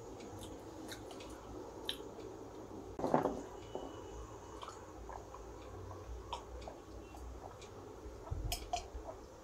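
Close-miked drinking of water from a glass: faint sips and swallows with small wet mouth clicks, a louder gulp about three seconds in and a few clicks near the end.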